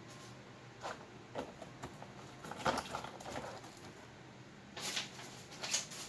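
Cardboard laptop box being handled: a series of short rustles and scrapes of cardboard, with the loudest around three seconds and again near the end.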